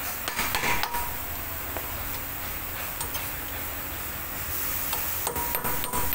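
Ball-peen hammer knocking on a steel brake disc rotor, each blow leaving a short metallic ring. A quick cluster of blows comes near the start and another near the end, with a few light ticks between.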